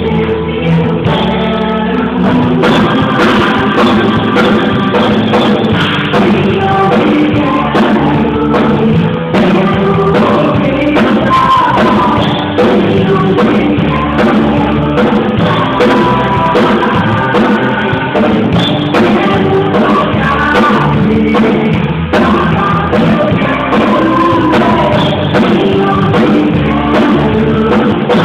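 Congregational worship music: a band with drums and sung vocals playing a loud, up-tempo gospel song.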